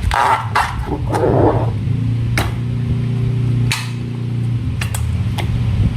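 Slime being squeezed and handled: a scatter of sharp, sticky clicks and wet squelches, with a low steady hum in the middle.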